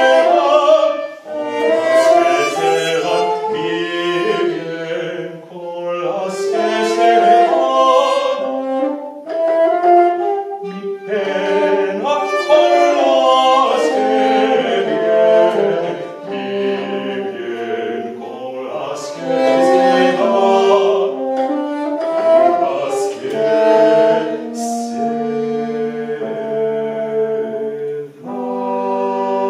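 Live early-music ensemble playing: several melodic lines of voice and instrument weave together in phrases, then settle into a long held chord near the end.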